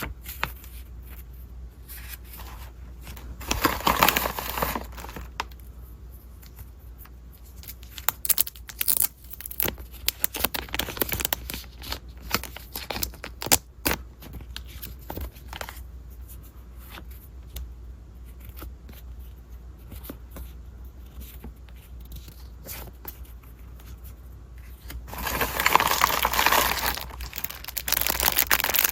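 Packaging being opened by hand: paper or plastic wrapping tearing and crinkling, with scattered taps and clicks of handling, and two longer bursts of tearing and rustling, one a few seconds in and one near the end.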